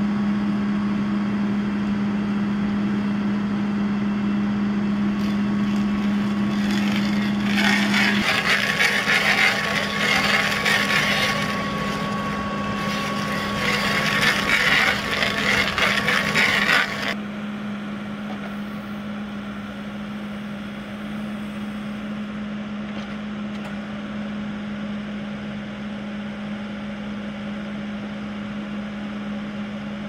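Backhoe loader's engine running steadily, with two spells of louder harsh cracking and grinding as the stump crusher attachment works into a tree stump. The crushing cuts off sharply about halfway through, leaving the engine running alone.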